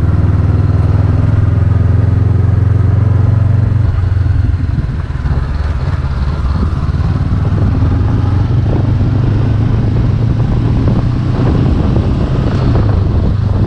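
Honda CB500X parallel-twin engine running steadily while the motorcycle is ridden, heard from the rider's seat. Its loudness dips briefly about four and a half seconds in, then the engine picks up again.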